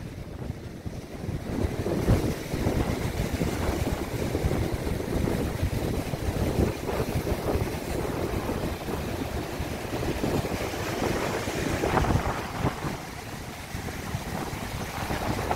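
Rough sea surf breaking and washing over a rock shelf, surging louder and softer, with strong wind buffeting the microphone.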